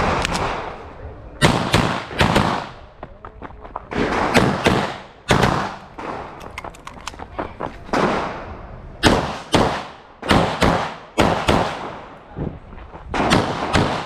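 Pistol shots fired in quick pairs and short strings, about two dozen in all, with brief pauses between groups. Each shot rings with a short echo. This is a timed practical-shooting stage: double taps on each target, with pauses to move or change magazines.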